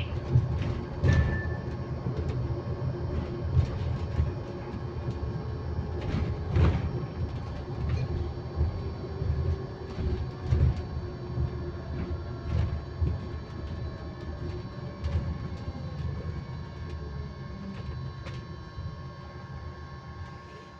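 Inside a moving electric bus: a steady constant-pitch whine from the bus's electric drive sits over the low rumble of the ride, with occasional knocks and rattles from the body. The ride noise eases off near the end.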